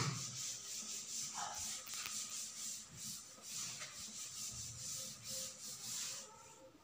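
Chalk being wiped off a chalkboard with a cloth: quick back-and-forth rubbing strokes, about two or three a second, stopping near the end.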